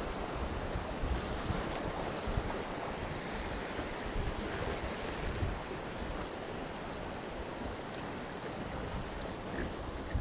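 Steady rush of whitewater rapids around an inflatable raft, with wind buffeting the camera's microphone as an uneven low rumble.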